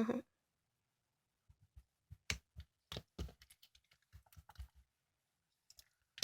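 Faint, irregular light clicks and taps, in a cluster from about a second and a half in to nearly five seconds, then a few more near the end.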